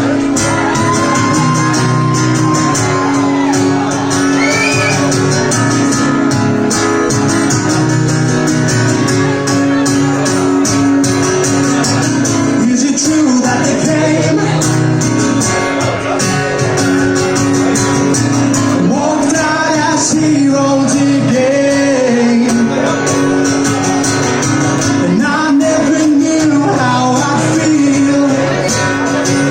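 Live band performing a guitar-pop song with a male singer singing loudly over it, heard in the room.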